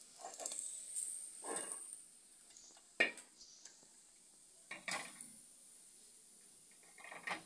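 Metal pot and steel plate clattering as freshly roasted corn kernels are tipped and scraped out, with a sharp clink about three seconds in and another about five seconds in.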